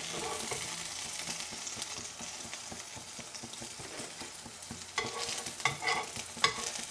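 Egg-dipped bread slices frying in hot oil in a pan, sizzling and crackling steadily. Near the end come a few sharp clicks and scrapes as a spatula lifts a fried slice out onto a plate.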